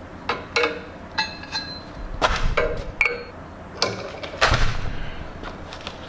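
Steel hand tools clanking and clinking against the steel hydraulic line fittings of a log splitter's cylinder as a tight fitting is worked with a ratchet and a wrench: about ten sharp metallic knocks, some ringing briefly.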